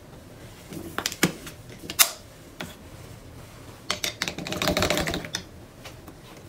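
Painting tools being handled: a few sharp clicks and taps, then about a second of quick clicking and scrubbing near the middle-to-end, like a brush being worked against a hard palette or cup.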